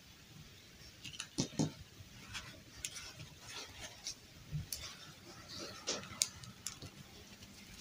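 Faint, irregular small clicks and rustles of hands handling plastic dolls and a doll's fabric gown as it is pulled off the doll.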